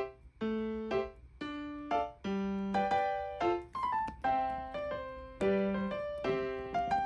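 Background piano music: a light tune of short notes, each struck and fading, about two a second.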